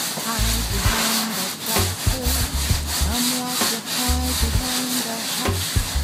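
Paintbrush scrubbing rapidly back and forth on canvas, a dense scratchy rubbing, with soul music playing under it.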